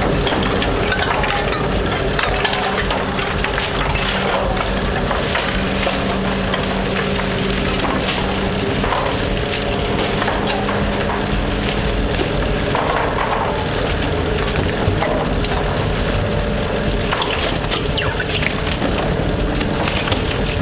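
Rotopress rotating-drum garbage truck running its compaction drum, a steady machine hum under the crackle and crunch of bags and boxes being drawn in and crushed.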